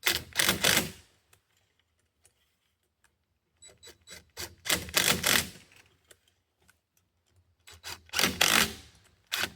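Stainless steel hose clamps on a maple sap mainline being tightened with a hand tool: three bursts of rapid clicking and rasping, each lasting one to two seconds, with short pauses between.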